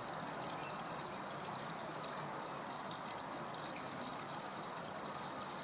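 Steady running water, an even rushing and trickling that goes on without change.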